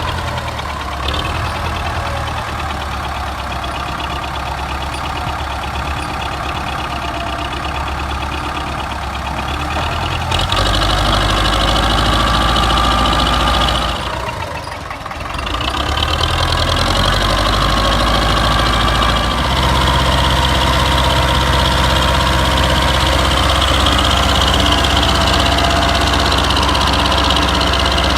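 Belarus tractor's diesel engine running steadily, stepping up in level about a third of the way in, dipping briefly around the middle, then running on steady again.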